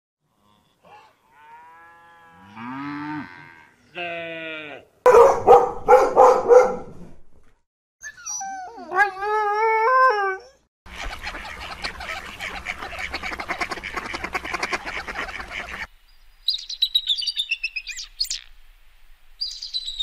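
A sequence of dog vocalisations: rising and falling whines, then a run of loud barks, then a husky's wavering, howl-like call. After a few seconds of rustling noise, short high bird calls come in near the end.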